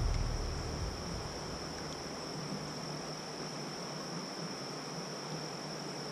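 Insects in the riverside trees giving a steady, high-pitched drone over a faint hiss. A low rumble fades out during the first second.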